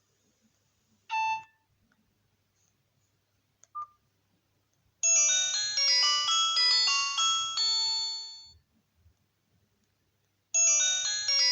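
Nokia 108 mobile phone playing a built-in ringtone: after two short beeps, a bright, chiming polyphonic melody starts about five seconds in, fades away after about three and a half seconds, then starts over about two seconds later.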